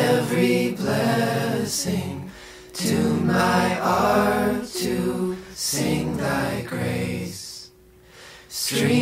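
A hymn sung by unaccompanied voices, in phrases with short breaks between them.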